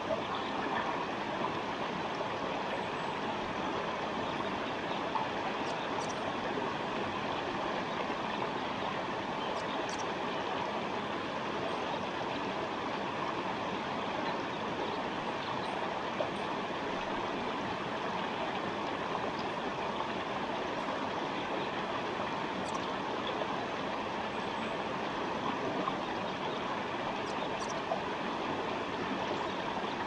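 Forest stream: water flowing steadily with an even rushing and babbling sound that does not let up.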